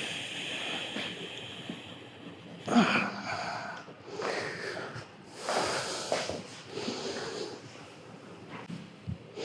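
A man taking slow, deep breaths in and out on cue, with a strong breath about three seconds in, a longer one around five and a half seconds, and fainter breaths between.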